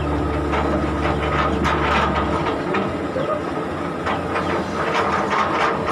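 JCB hydraulic excavator working: its diesel engine hums under a run of irregular wooden knocks and clatter as acacia logs are shifted and dropped onto a log truck. The low engine hum eases about two seconds in.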